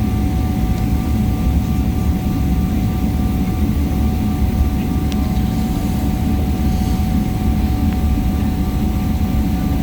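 Steady low rumble of an airliner cabin on the ground after landing, with a constant thin whine above it.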